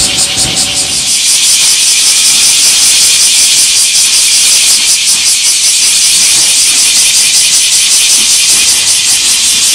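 Loud, steady high-pitched hiss with a fast, even pulse running through it. A low rumble fades out in the first second.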